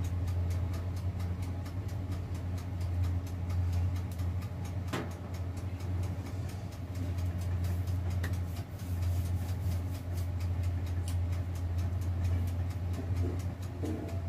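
Electric countertop oven running while it preheats, with a steady low hum. A single light knock comes about five seconds in.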